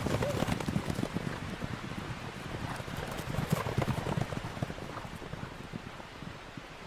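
Horse hooves clip-clopping, the beats growing fainter as the horse moves away.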